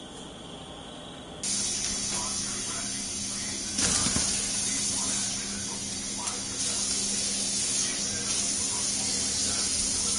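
A steady hiss with a low hum under it starts suddenly about a second and a half in, with faint voices in the background.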